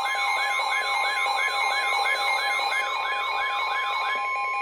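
Electronic emergency alert signal for a tornado warning: a falling siren-like sweep repeats about three times a second over steady electronic tones. The sweeps fade out near the end, and one steady tone cuts off just after.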